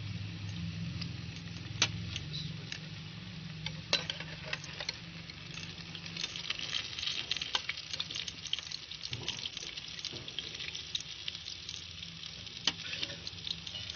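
Fish pieces deep-frying in hot oil in a large aluminium pot: a steady sizzle with many small crackling pops, denser from about six seconds in, and a couple of louder sharp clicks in the first four seconds.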